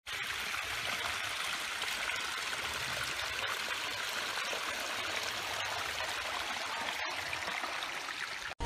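Small spring water trickling over rock and through soil and roots, a steady splashing trickle. It cuts out for an instant about seven seconds in.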